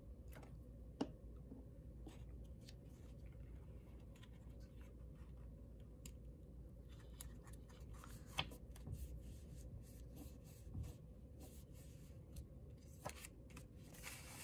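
Faint paper handling: hands pressing, smoothing and rustling printed paper envelopes and cardstock as they are glued into a paper box. There are two sharp little taps, about a second in and about eight seconds in, and a burst of rustling near the end.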